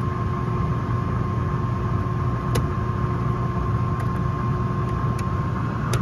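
Packaged rooftop HVAC unit running: a steady low mechanical hum with a thin steady whine over it, and a few light clicks.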